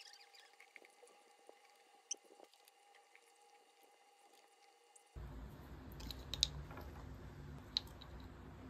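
Frozen blueberries handled in a small ceramic bowl and eaten: light clicks and taps of berries and fingers on the dish, with a few sharper clicks in the second half. A steady background hiss comes in about five seconds in.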